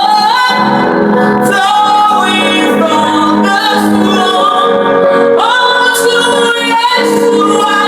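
Worship song: a woman singing long, gliding sung lines over sustained backing music.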